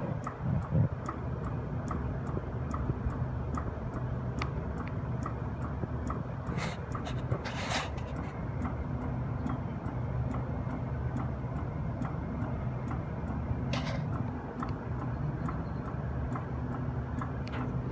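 Copeland refrigeration compressor running through a pumpdown with a steady hum, over which a strange, evenly spaced ticking repeats about three times a second. A few short hissing bursts come and go.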